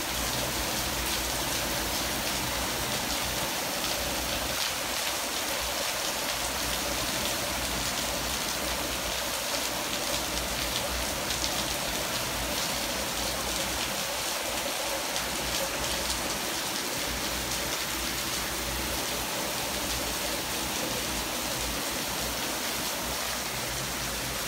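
Torrential rain pouring down steadily in a heavy thunderstorm.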